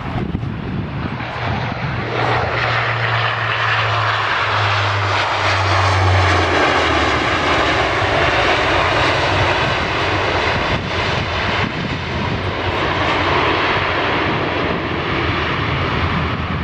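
Airbus A220-300 airliner's twin Pratt & Whitney PW1500G geared turbofans passing close on arrival: a loud jet rush that swells over the first couple of seconds and stays loud.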